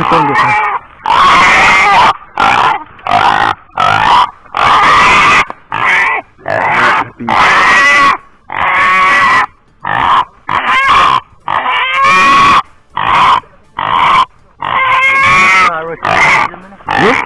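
Wild hog squealing loudly and over and over, in harsh screams about half a second to a second long with short gaps between them: the distress squeals of a caught or cornered hog.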